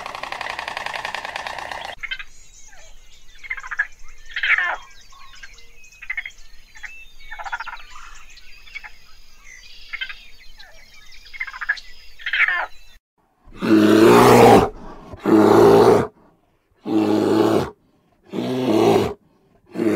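A harsh buzzing sound for the first two seconds, then raccoons chittering in many short, high, squeaky calls. From about two thirds in, a sun bear roars: five loud, drawn-out calls of about a second each, separated by sudden silences.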